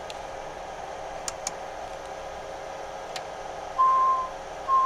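Steady hiss with a few faint clicks, then two short steady beeps of the same pitch, each about half a second long, near the end.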